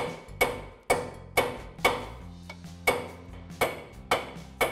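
Hammer striking a steel punch held against a half-drilled ball joint rivet, about two sharp metal-on-metal strikes a second, each with a short ringing tone, with a brief pause about halfway through. The blows are meant to break off the partly drilled rivet, and it does not come free.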